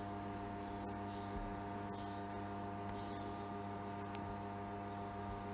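Steady low electrical hum with several even overtones, unchanging throughout.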